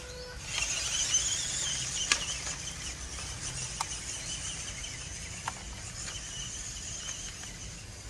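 MN90 RC off-road truck's small electric motor and gears whining as it drives off through grass, growing fainter as it moves away, with a few sharp clicks along the way.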